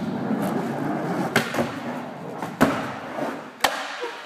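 Skateboard rolling, with three sharp clacks of the board against the surface, spaced about a second apart.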